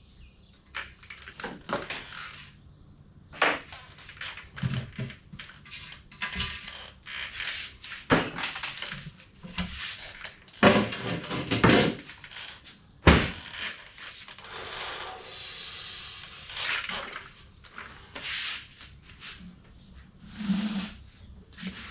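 Irregular knocks, clicks and clatter of hand tools and parts being handled, with a few sharper knocks about 8, 11 and 13 seconds in.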